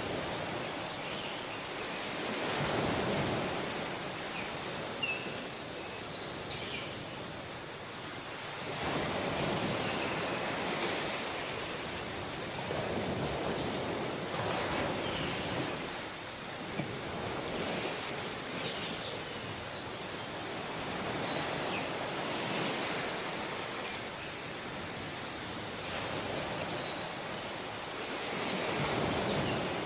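Small sea waves breaking and washing up on a beach, one swell every few seconds over a steady wash. Faint short high chirps sound now and then.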